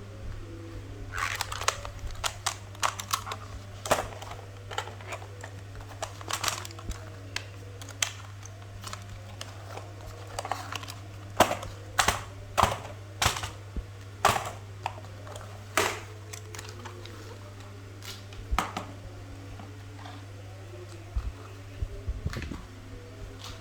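Irregular clicking of computer keys and buttons being pressed, sometimes in quick runs, over a steady low hum.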